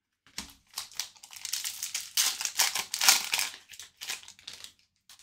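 Foil hockey card pack being torn open and crinkled in the hands: an irregular crackling rustle that starts about a third of a second in and dies away near the end.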